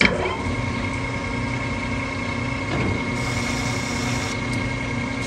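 Precision Matthews metal lathe starting suddenly and running steadily with a high whine from its drive, while a carbide threading insert takes a light single-point pass on a 32-threads-per-inch acme lead screw.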